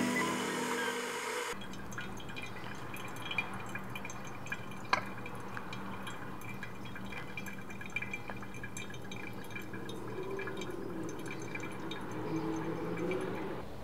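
Pour-over coffee dripping into a glass server: a few faint, irregular drips over a steady low hum. Music ends about a second and a half in.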